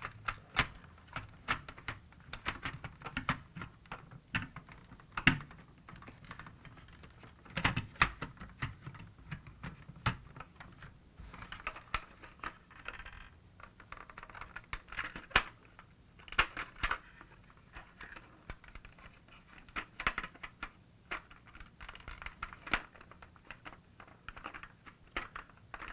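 Irregular clicks, taps and scrapes of hard plastic parts being handled and pressed together: the voice unit being worked into place in the back of a 1983 Kenner Knight 2000 Voice Car toy until it seats.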